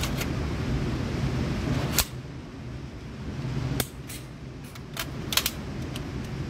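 Sharp clicks and knocks from handling an AR-style pistol, the loudest about two seconds in and just before four seconds, with a few lighter clicks later. A steady low hum of range ventilation underneath.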